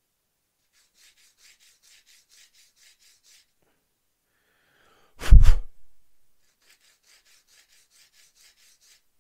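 A flat file rasps lightly on a small plastic kit part, smoothing it flat, in quick soft strokes about five a second. There are two runs of strokes, and between them, about five seconds in, one short loud puff of air.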